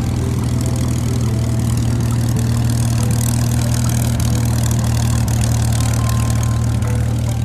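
Aeroplane engine sound effect: a steady, loud low engine drone with a rushing hiss above it.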